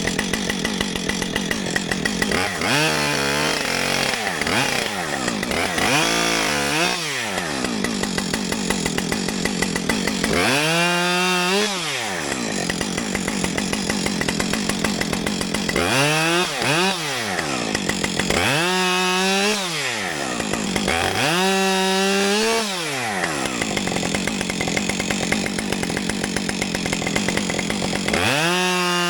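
Two-stroke gasoline chainsaw cutting up downed trees. The engine climbs from a ticking idle to full speed and drops back about seven times, sometimes holding at full speed for a second or two.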